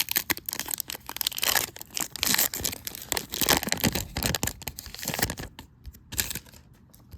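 Foil booster-pack wrapper crinkling and rustling while trading cards are handled, a dense crackle of small sharp sounds that thins out about six seconds in.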